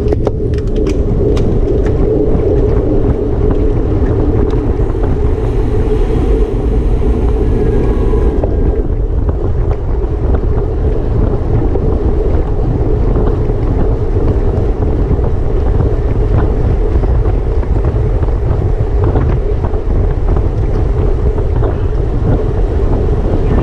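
Wind buffeting a rider-mounted camera's microphone as a racing bicycle gets up to speed: a loud, steady low rush, with a few sharp clicks in the first second or two.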